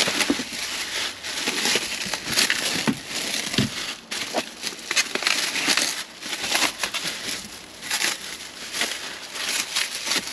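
Plastic packaging crinkling and rustling as hands rummage through a bag and unwrap parts, a dense crackle of many small crinkles.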